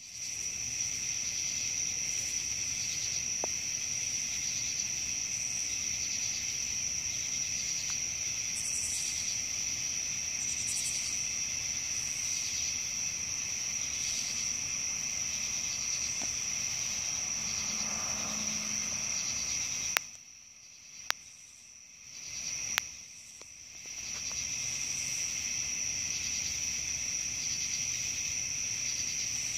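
Night chorus of crickets and other insects: a steady, high-pitched trilling. It cuts out briefly twice, with sharp clicks, about two-thirds of the way through.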